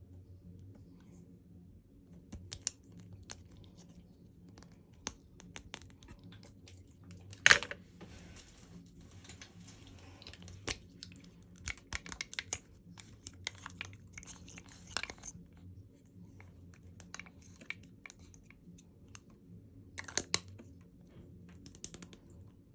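Packaging being handled and opened: scattered clicks, taps and short crinkling, tearing rustles, with a sharp knock about seven and a half seconds in and a louder cluster of clicks near the end, over a steady low room hum.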